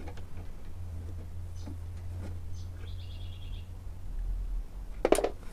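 Faint small clicks and scrapes of a screwdriver working a screw on the earth-wire tag of a loudspeaker's metal frame, over a steady low hum. A brief high chirp about three seconds in, and a short louder sound near the end.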